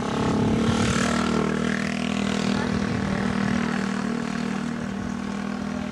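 An engine running with a steady hum, with a rush of noise that swells about a second in and then eases off.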